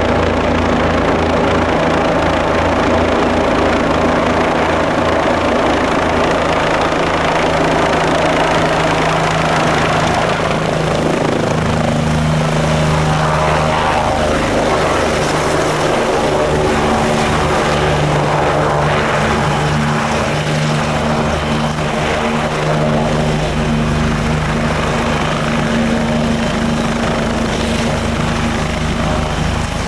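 Bell 429 twin-turbine helicopter landing: the four-blade main rotor's blade beat overhead as it descends, then a hover and touchdown on the pad with the engines and rotor still running. The low rotor pulsing eases in the second half as a steadier engine tone takes over, with a constant high turbine whine throughout.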